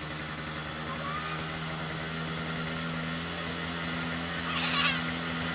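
An engine running steadily at a constant speed, with a brief high-pitched sound near the end.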